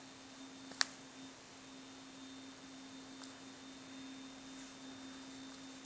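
A faint steady hum, with one sharp click a little under a second in and a fainter click about three seconds in.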